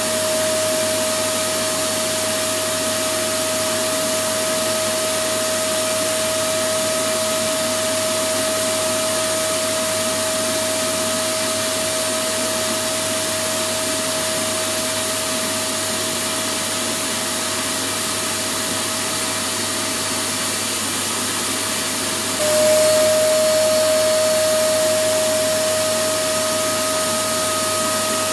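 Electric vacuum cleaner running steadily: a rushing airflow with a steady motor whine over it. About 22 seconds in, the whine drops slightly in pitch and the sound gets a little louder, then eases back.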